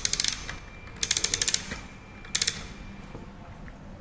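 The wooden works of a karakuri tea-serving doll ratcheting in three quick bursts of rapid, even clicks as its mechanism is wound by hand.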